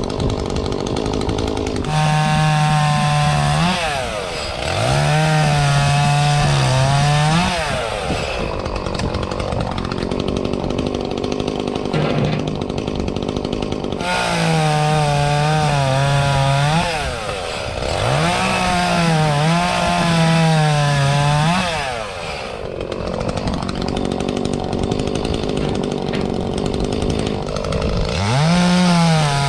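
Echo CS-352 two-stroke chainsaw revved to full throttle about five times, each run lasting a few seconds, dropping back to a lower, rougher idle in between. Its pitch sags under load during the runs as it cuts small trees.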